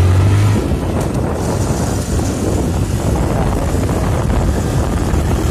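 Wind buffeting the microphone on a moving motorcycle, with the motorcycle's engine running underneath. A low steady hum drops away about half a second in, leaving an even rumble.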